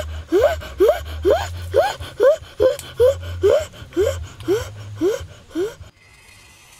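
A boy's voice making a rapid run of short rising hoots through pursed lips, a little over two a second, stopping about six seconds in.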